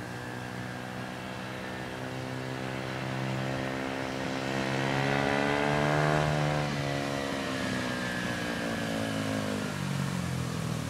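Small 70cc dirt bike engine running, its note climbing in pitch and loudness to a peak about six seconds in, then falling away.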